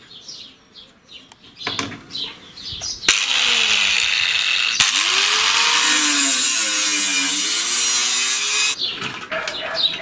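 Angle grinder cutting through a rusty steel tube: it starts suddenly about three seconds in as a loud, harsh grinding hiss, breaks off briefly, then runs again with its pitch dipping as the disc bites in and recovering, and stops near the end.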